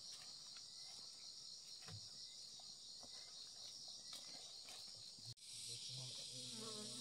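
Steady chorus of insects in the forest, a high, pulsing buzz. After a cut about five seconds in, the chorus turns into a louder, smoother hiss, and a short voice-like sound is heard near the end.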